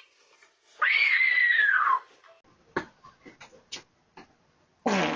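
A cat yowling once: one long call that falls in pitch at its end. A few faint clicks follow, and a loud, rough noise starts near the end.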